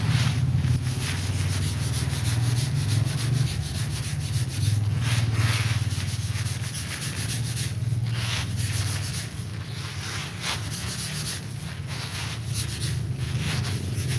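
A steady low hum under a run of rough rubbing and swishing sounds that come and go about once every half second to second.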